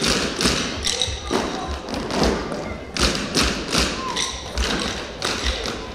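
A group of children drumming with sticks in unison, a steady beat of thumps and taps at about two a second.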